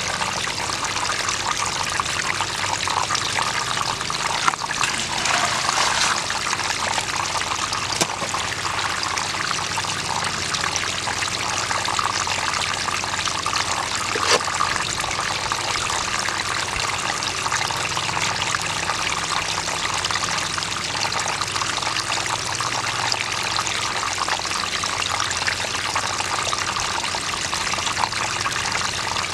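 Water from a pump hose running steadily down an aluminium gold sluice box, washing dirt over the riffles. A couple of brief knocks are heard about four seconds in and again near the middle.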